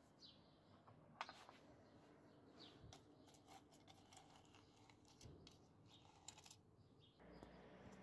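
Faint clicks and scrapes of a thin metal rod poking and stirring in the furnace crucible, with a few faint bird chirps.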